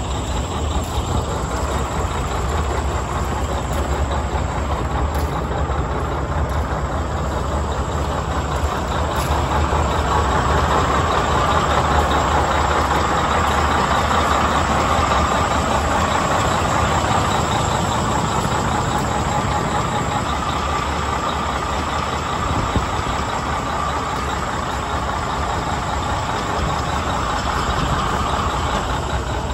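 Western Star truck tractor's diesel engine idling steadily, a constant low rumble with a broad mechanical hiss that gets somewhat louder through the middle.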